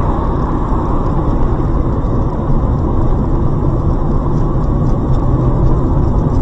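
Car driving steadily on the road: a continuous rumble of engine and tyre noise heard from inside the cabin through a dashcam's microphone.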